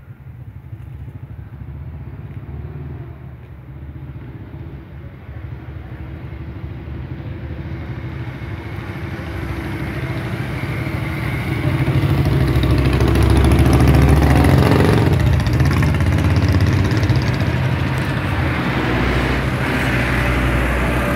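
Motor vehicle engine running close by, a steady low hum that grows louder over the first twelve seconds or so and then stays loud.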